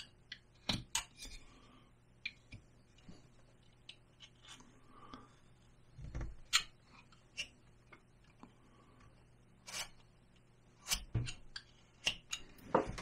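Small hand carving tool cutting basswood: scattered short clicks and scrapes as the blade slices and pops off small chips, with an occasional low knock of the block being handled.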